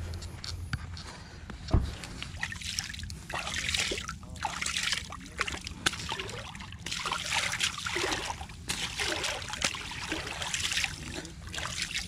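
Shallow water sloshing and splashing around feet at the edge of the water, in irregular swells. One sharp knock a little under two seconds in.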